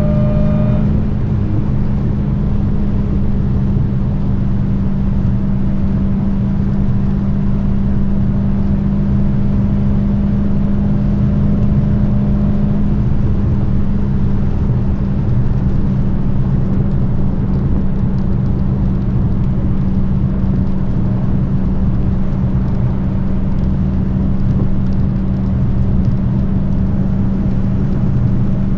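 Dodge Challenger SRT Hellcat's supercharged 6.2-litre Hemi V8 cruising at a steady engine speed, a loud, even exhaust drone. A higher whine rises briefly at the start and drops away about a second in.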